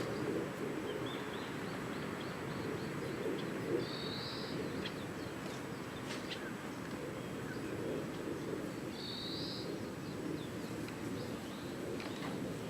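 Outdoor ambience with birds: scattered small high chirps over a steady low background noise, and a short, high, rasping call that repeats about every five seconds, at about four and nine seconds in.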